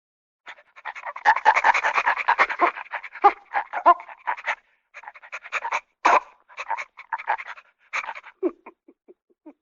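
A dog panting in rapid, quick breaths. It starts about half a second in, pauses briefly about halfway, and thins out near the end.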